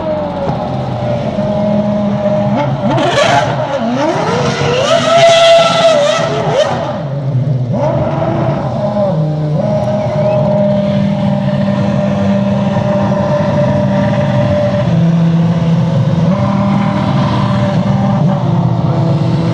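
Red Bull Formula One car's engine revving hard in rising and falling sweeps as the car spins donuts, then settling into a steady high idle for the second half.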